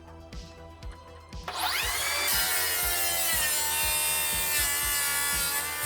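Makita XGT HS004G 40-volt cordless circular saw spinning up about a second and a half in with a rising whine, then running at speed as it cuts into wood on its guide rail. Background music with a steady beat underneath.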